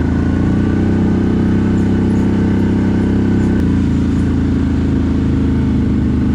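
CFMOTO 1000 ATV's V-twin engine running steadily at low speed, its note changing a little about three and a half seconds in.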